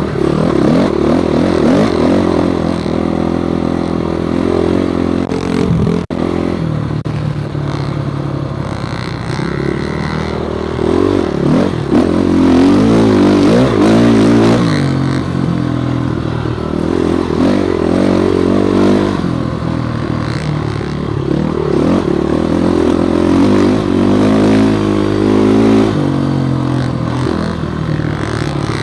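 Dirt bike engine running hard on a rough trail, its pitch rising and falling again and again with throttle and gear changes.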